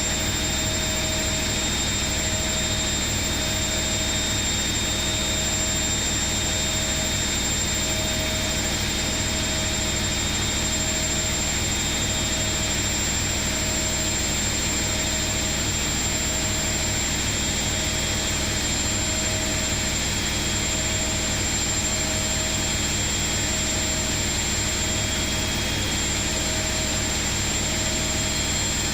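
Atlant 70U1010-00 washing machine on its spin cycle: the drum spinning at speed with a steady high whine and a faint hum that pulses roughly once a second.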